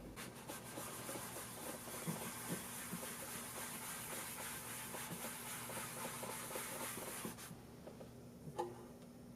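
A cloth rubbing wax into a wooden box, a steady scuffing hiss made of many small strokes, which stops about seven and a half seconds in. A single light knock follows near the end.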